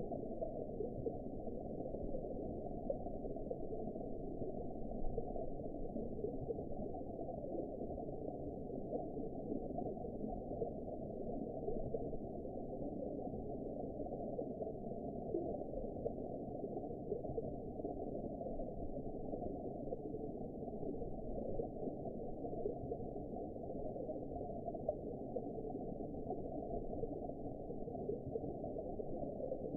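Underwater ambience of the sea floor: a steady, deep, muffled wash of noise with no high sounds and no distinct events.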